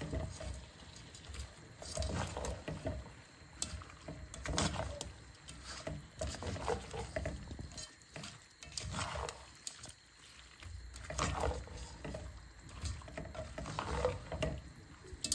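Shrimp being stirred and tossed with seasoning in a cooking pot: repeated scraping strokes with knocks, about one every two seconds.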